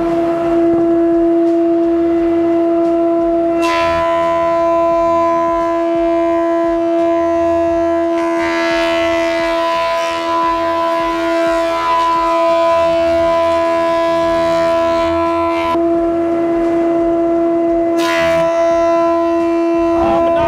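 Old thickness planer running with a steady high whine. It is cutting a wide glued spruce panel, about 1 mm per pass: a coarse cutting noise joins in about four seconds in and drops away near 16 s, and another cut starts about two seconds later.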